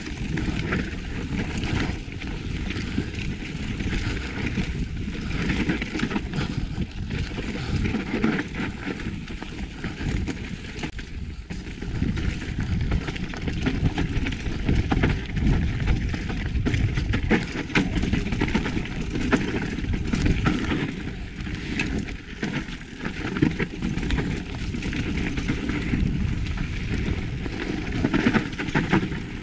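Mountain bike descending a dry, rocky dirt trail: tyres crunching over loose dirt and stones, with the bike clattering and rattling over the bumps.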